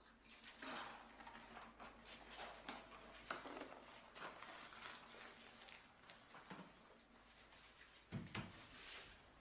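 Near silence: quiet room tone with scattered soft rubs and clicks, and a dull thump about eight seconds in.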